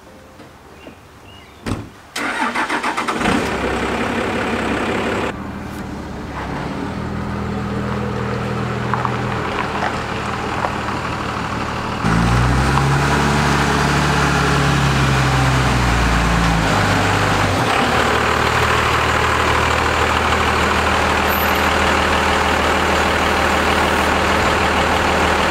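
Dodge Ram 3500 dually's Cummins diesel starting about two seconds in and settling to a steady idle. About halfway through, the engine note rises and falls for a few seconds as the truck is driven, then it idles steadily close by.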